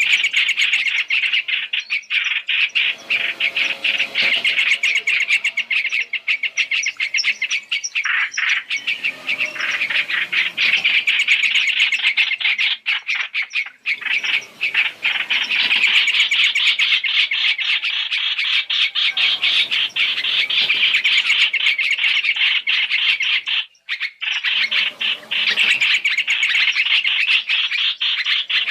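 Hoành hoạch (trao trảo) birds calling in a dense, continuous stream of rapid chirps and chatter, played as a trapping lure call. The chirping breaks off briefly about 14 and 24 seconds in.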